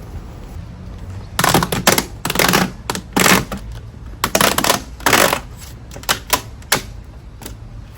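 Irregular run of short clatters and rustles, starting about a second and a half in and thinning out near the end.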